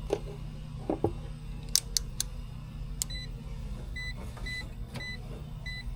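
Short, high electronic beeps from a handheld electrical test meter, five of them at about two a second, after a few sharp clicks of handling.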